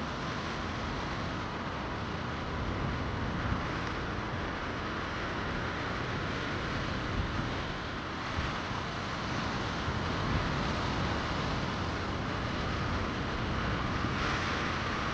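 Steady rushing noise of ocean water and wind buffeting the microphone.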